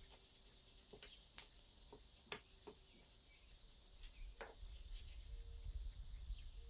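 Wooden rolling pin rolling out pastry dough on a floured countertop: faint rubbing with a few light clicks and knocks, the sharpest about two seconds in.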